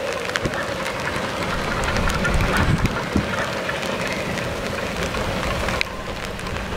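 Steady rain and wind noise on the microphone, with scattered drop clicks, over a distant narrow-gauge steam train running along the line.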